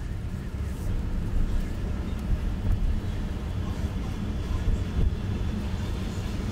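Car interior noise while driving: a steady low rumble of the road and engine heard from inside the cabin.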